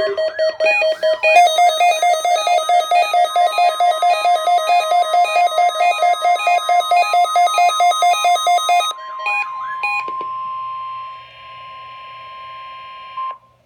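Weather radio test alert: about nine seconds of fast, evenly repeating electronic alarm beeps on several stepped pitches, then the steady 1050 Hz NOAA Weather Radio warning alarm tone with light static, which cuts off a little before the end.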